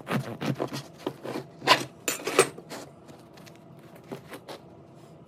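Serrated bread knife sawing through a crusty sourdough loaf: a quick run of sawing strokes over the first three seconds, then a few light knocks.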